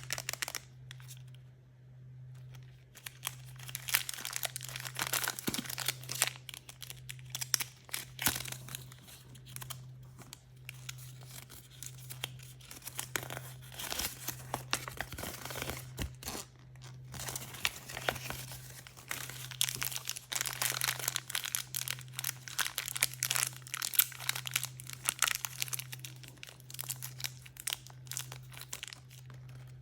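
Crinkly wrapping of mystery surprise toys being torn open and handled: a steady stream of irregular crackling, crinkling and tearing. A steady low hum runs underneath.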